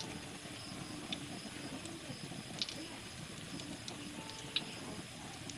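Shredded cassava patties deep-frying in hot oil in a wok: a steady sizzle with a few sharp pops.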